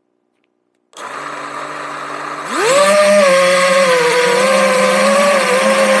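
FPV racing drone's electric motors and propellers, heard from a camera on board the drone. About a second in they start spinning at idle. About a second and a half later they throttle up with a rising whine, then hold a steady, slightly wavering whine of several tones.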